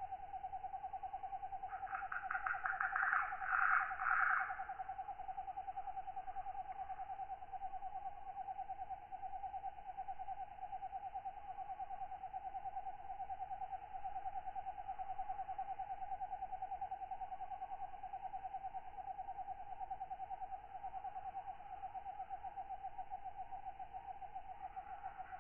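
Tropical night ambience: a steady, fast-pulsing insect chorus, with a louder burst of katydid calling from about two to four and a half seconds in.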